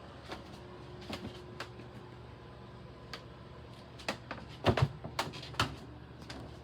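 Irregular clicks and knocks, loudest in a cluster of sharp knocks about four to five and a half seconds in, over a steady low hum.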